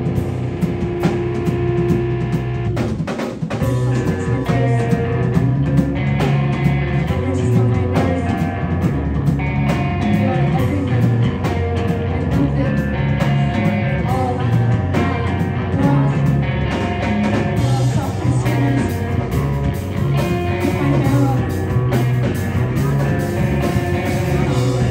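Hardcore band playing live and loud: distorted electric guitar and bass over a pounding drum kit with cymbals, with a very short break about three seconds in.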